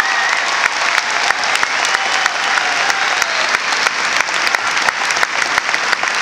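Large audience applauding steadily in an arena: a dense mass of clapping with single sharp claps standing out.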